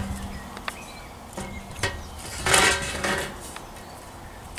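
Handling noise from a Canon EOS 550D DSLR body being moved and turned on a table: a couple of light clicks and knocks, then a brief louder rub or rustle a little past halfway.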